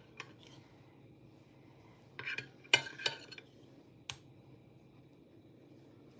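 Metal cutlery clinking and scraping against dishes while food is served, with a few sharp clinks between about two and three seconds in and one more about a second later.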